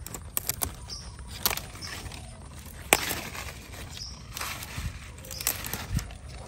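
Irregular sharp snaps and rustling of leafy vegetable stems being broken off by hand, the loudest snap about three seconds in.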